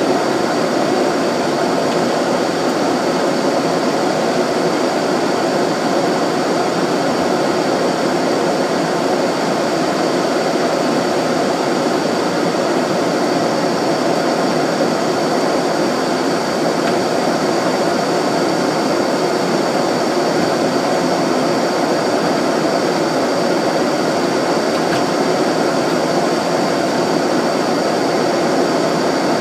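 Steady cruise noise of a jet airliner heard from inside the cockpit: constant rushing airflow over the fuselage mixed with engine hum.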